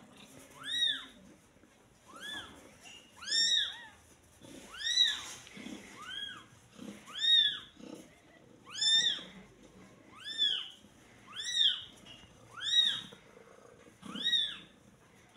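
Newborn kittens mewing: a string of short, high-pitched cries that rise and fall in pitch, about one or two a second.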